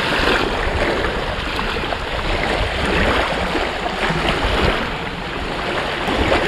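Steady wind rushing over the microphone, with rumbling gusts, and small waves washing at the shoreline.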